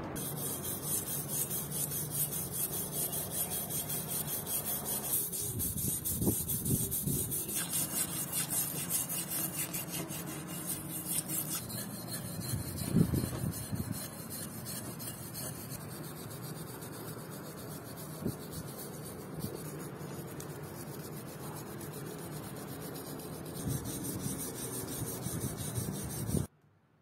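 A metal blade scraping loosened rust off wet, acid-soaked steel car-jack parts in quick repeated strokes. The scraping cuts off suddenly near the end.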